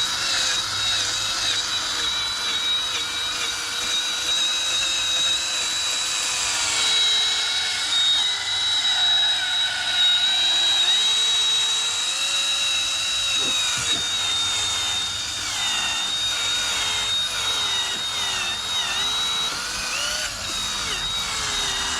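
Cordless drill running at low speed with an 800-grit sanding disc on a Velcro pad, sanding a foggy headlight lens. The motor's whine wavers up and down in pitch as the load on the disc changes, over the scratchy hiss of the sandpaper on the plastic.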